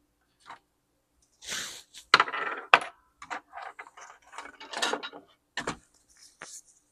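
Sharp clicks and short rattles of small metal tools being handled as a screwdriver bit is swapped, loudest a little after two seconds and thinning out toward the end.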